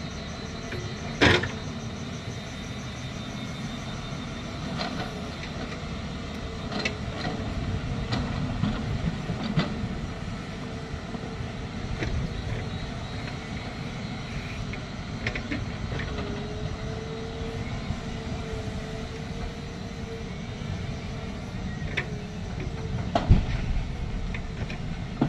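Diesel dump truck engines running with a steady low rumble and a wavering whine, with two sharp knocks: one about a second in and one near the end.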